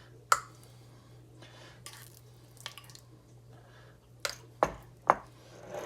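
A few sharp clinks and knocks of kitchen utensils against dishes, one about a third of a second in and a cluster of three about four to five seconds in, with soft scraping between them over a low steady hum.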